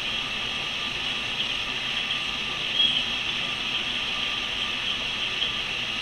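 Steady hiss of background noise, with one brief high chirp-like sound about three seconds in.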